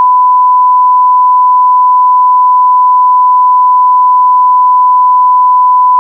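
Television bars-and-tone test signal: one loud, steady pure beep at a single unchanging pitch, the standard 1 kHz reference tone.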